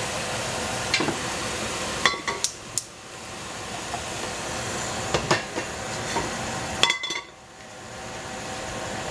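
Stainless steel pot and lid clinking as the lid is handled and lifted off: a few sharp metal clicks with short ringing about two seconds in, another near five seconds, and the loudest near seven. A steady hiss runs underneath and dips briefly after the last clinks.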